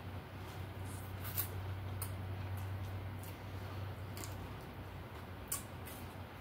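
Close-miked eating noises from people chewing fried chicken: scattered wet smacks and clicks of lips and mouths, the sharpest about a second and a half in and again near the end, over a low steady hum.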